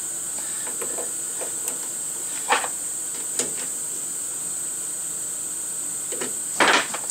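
A few light metallic clicks and knocks as a machined bearing adapter is handled and set into a lathe's three-jaw chuck, the loudest near the end, over a steady high-pitched whine.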